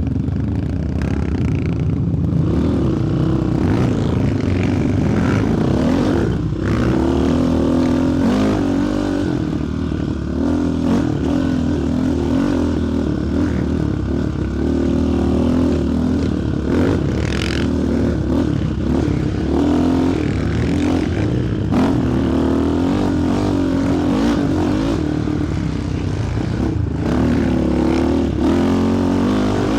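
Single-cylinder four-stroke sport quad engine running under riding load, its pitch rising and falling as the throttle is worked.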